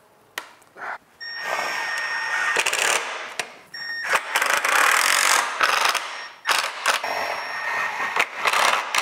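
Cordless drill driving pocket screws into wooden trim boards in about four runs of a second or two each. The motor whines steadily under the noise of the screws biting into the wood.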